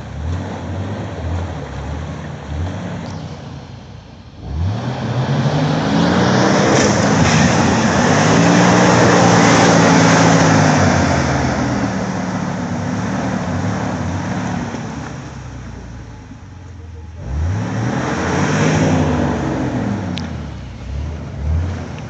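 Jeep Wrangler TJ engine revving hard under off-road load. It runs low at first, climbs in pitch about four seconds in, holds high for several seconds and falls away, then revs up again twice near the end.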